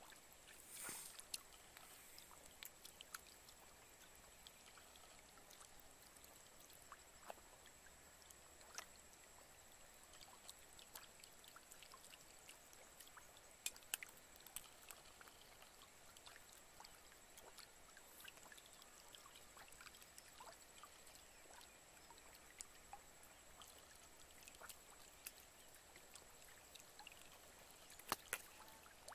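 Fish thrashing and flapping in very shallow muddy water, making scattered small splashes and wet flicks, with a louder cluster about a second in, a couple midway and two near the end. A faint steady high-pitched tone runs underneath.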